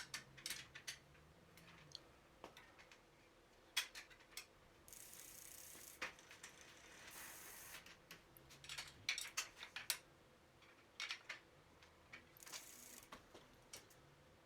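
Faint, irregular ratcheting clicks from a bicycle's rear freewheel as the wheel is worked, mixed with light handling ticks. Three brief hissing stretches come about five, seven and twelve seconds in.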